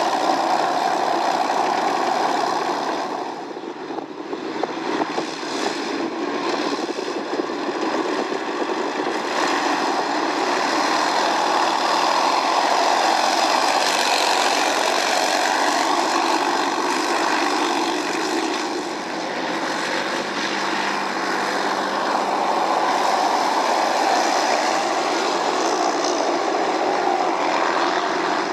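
BMP-1 tracked armoured vehicle driving across a field, its diesel engine running steadily under load, with a brief dip in level about three seconds in and again around the twenty-second mark.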